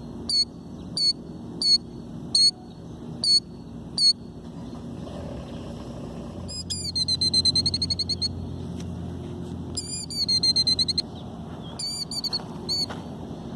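Killdeer alarm calling: a string of shrill single calls about one every 0.7 seconds, then two fast rapid trills, then a few more single calls near the end. It is the nesting female's alarm at an intruder near her eggs.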